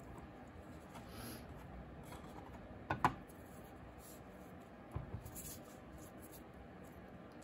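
Hands handling air-dry clay and a piece of burlap on a plastic tray: faint rubbing, with two sharp taps about three seconds in and a few softer taps about five seconds in.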